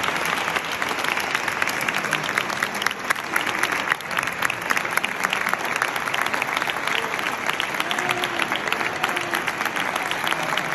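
Large audience clapping steadily and densely at the end of a sung performance, with a voice or two faintly heard in the second half.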